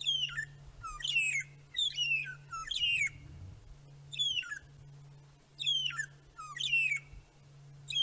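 Magpie shrikes calling: a series of clear whistles, each falling in pitch and ending on a lower note, about one a second with a short pause midway.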